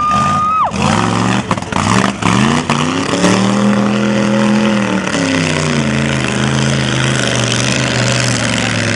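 Mud buggy's engine revving up about a second in, held at high revs, then dropping back to a lower steady run around six seconds in as it ploughs through deep mud. A brief steady high tone sounds at the very start.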